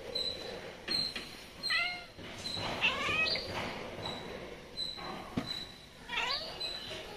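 Cats meowing three times, short rising-and-falling calls about a second and a half in, around three seconds in, and near the end, while short high chirps repeat in the background.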